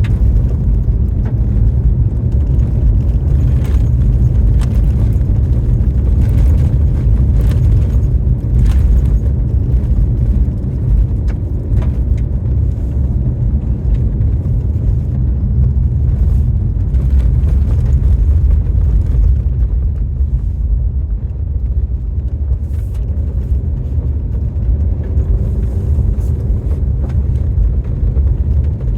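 Car on the move: a steady, loud low rumble of road and engine noise, with scattered faint ticks.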